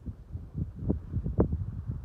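Wind buffeting the microphone in uneven low gusts and thumps.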